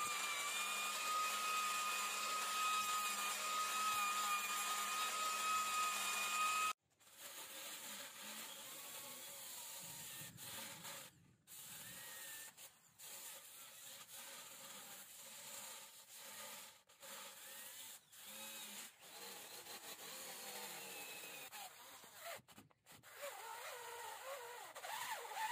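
Angle grinder with an abrasive disc running steadily with a constant whine as it sands the wooden rim of the vase, cutting off sharply about seven seconds in. After that, a quieter cordless drill with a sanding disc sands the wood in short, chopped bursts.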